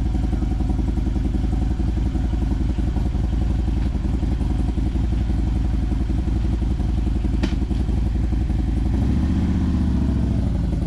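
Motorcycle engine idling steadily, with one sharp click about seven and a half seconds in. Near the end a second, wavering hum joins the idle.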